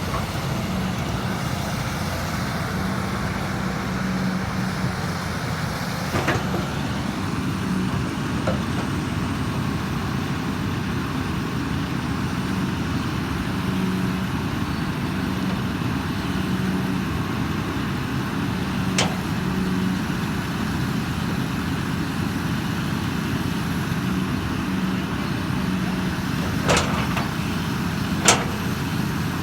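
Hydraulic excavator's diesel engine running steadily, its pitch swelling and easing slightly, with a few sharp knocks, two of them close together near the end.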